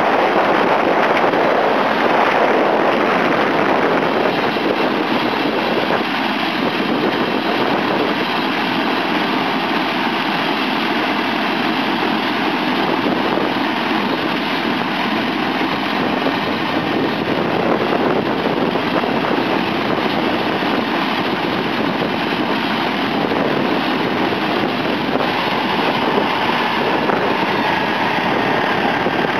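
Eurocopter AS350 B2 helicopter running on the ground with its main rotor turning: the steady noise of its single Turbomeca Arriel turboshaft engine and rotor blades.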